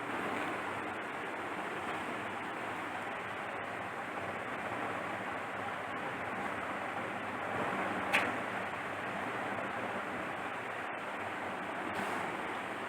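Steady hiss of background noise, with a single short sharp crack or click about eight seconds in.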